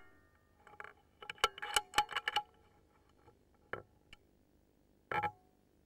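Sharp metallic clicks and clinks of an Air Arms S410 air rifle being handled: a quick cluster with a short ring in the first couple of seconds, then two single clicks. They are typical of working the side-lever to chamber the next pellet after a shot.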